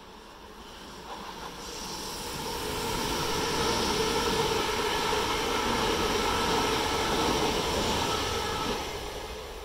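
Electric multiple unit passing at speed beneath the listener: a rolling rumble and hum that builds over the first few seconds, holds steady while the carriages pass, then fades near the end.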